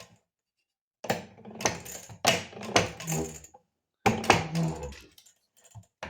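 Old Maytag two-stroke washing-machine engine being turned over by hand after its rod bearing is oiled, making two bursts of metallic clicking and rattling. The oil is meant to reach a main bearing so dry that it drags.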